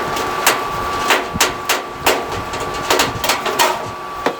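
Irregular clicks and taps, about a dozen, of a screwdriver working a Phillips head screw out of a clothes dryer's sheet-metal top panel.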